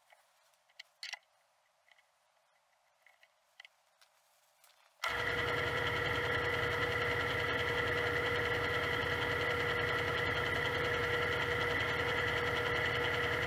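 A few faint clicks as a pointed tool is set in the lathe's toolpost. About five seconds in, an Atlas QC-54 metal lathe comes on suddenly and runs steadily, a motor hum with a high steady whine.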